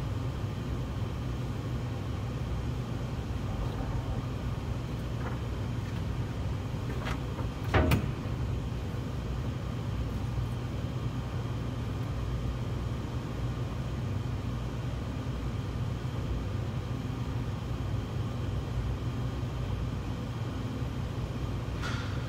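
Steady low hum of running commercial-kitchen machinery, unchanging throughout, with one sharp knock about eight seconds in and a few faint clicks.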